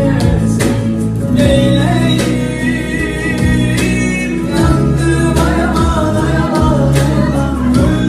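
A Turkish song: a young man's voice singing over an instrumental backing with plucked strings and a regular beat.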